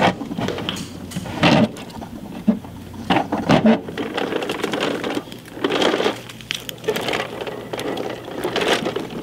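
Plastic Bruder toy garbage truck rolled over rough exposed-aggregate concrete, its wheels rattling and scraping in uneven bursts, with a few sharp plastic knocks.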